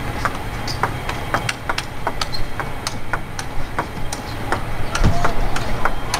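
Table tennis rally: the ball clicking sharply off the rackets and the table in quick, uneven succession, over a low crowd murmur in the hall. A deeper thud, likely a player's foot stamping, comes about five seconds in.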